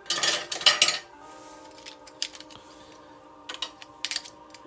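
Trading-card hanger boxes handled and set down on a table: a burst of clattering in the first second, then a few light knocks about three and a half seconds in.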